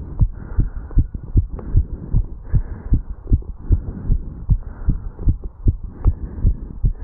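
Human heartbeat heard through a chest recording over the mitral valve area: steady, regular low thuds a couple of times a second, the heart still beating fast after jogging up stairs.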